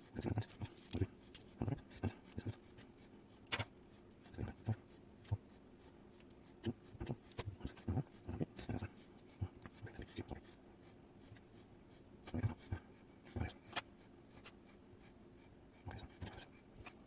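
Faint, irregular small clicks, taps and scrapes of metal lock parts, tools and pins being handled while a KABA Penta dimple lock cylinder is taken apart pin by pin.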